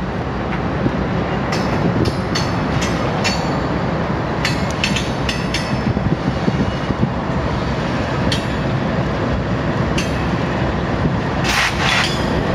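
Norfolk Southern freight train rolling past close by, covered hopper cars followed by diesel locomotives: a steady rumble of steel wheels on rail, broken by groups of sharp clacks as the wheels pass over the rail joints. A brief, louder, harsher clatter comes near the end.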